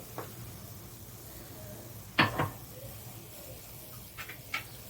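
Kitchen utensils clinking against a saucepan as spices are added to the pot: two sharp clinks close together about two seconds in, and a few lighter taps near the end, over a faint low steady hum.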